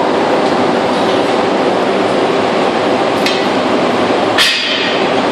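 Steady loud running of workshop machinery, with sharp metal clanks of steel rods against ingot-mould trays about three seconds in and again just after four seconds.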